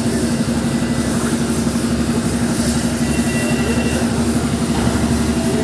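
A heavy engine running steadily at an unchanging speed, with a strong constant hum.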